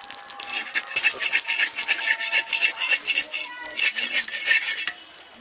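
Metal spatula scraping over and over against an earthenware pan, prising a cooked chitoi pitha (rice-flour cake) loose from the clay: many quick, rough scrapes that stop about five seconds in.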